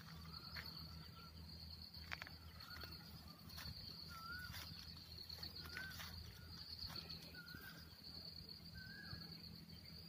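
Faint outdoor farm ambience: insects keep up a steady high trill while a bird repeats a short, wavering call about once a second. Occasional soft clicks are heard throughout.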